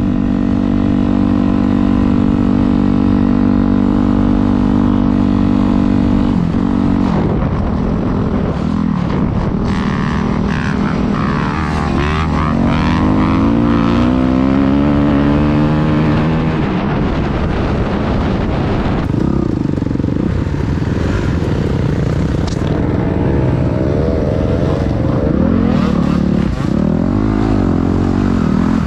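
Dirt bike engine, heard from on board, running at a steady pitch for the first several seconds. Around the middle it climbs in pitch again and again through the gears, then rises and falls with the throttle through the second half.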